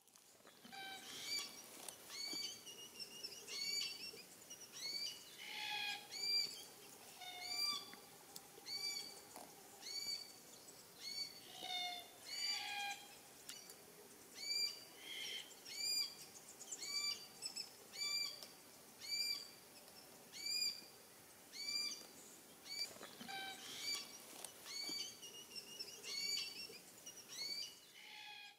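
Glossy black-cockatoos calling: short, rising, wheezy calls repeated about once a second, with a few lower notes mixed in.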